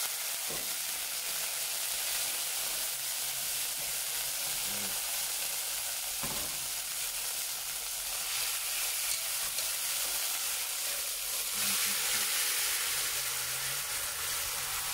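Seasoned chicken pieces sizzling in hot oil in a cast-iron pot as they are laid in bit by bit, a steady frying hiss with a few light knocks.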